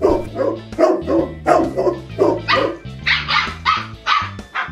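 Dog barking sound effects, short barks about three a second, over background music with a steady bass line.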